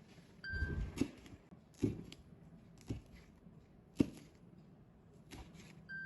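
Knife chopping vegetables on a cutting board: single sharp strikes roughly a second apart, the loudest about four seconds in.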